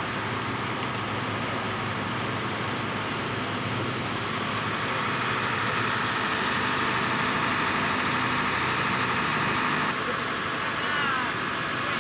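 Steady rushing of a swollen stream after heavy rain, its water flowing fast past a fallen pole and branches. It grows somewhat louder for a few seconds midway.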